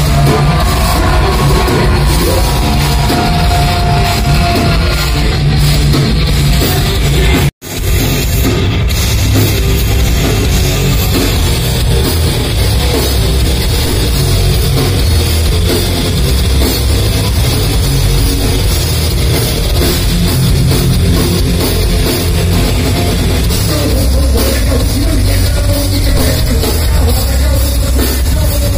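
Live heavy rock band playing loud, with drums and distorted guitars, heard from within the crowd. The sound cuts out for a moment about seven and a half seconds in, then carries on.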